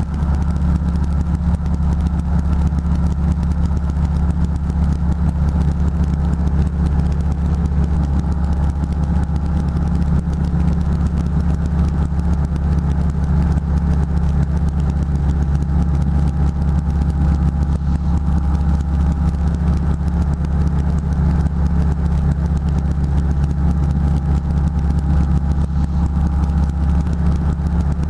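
Single-engine light aircraft's piston engine and propeller droning steadily in flight, heard from inside the cockpit.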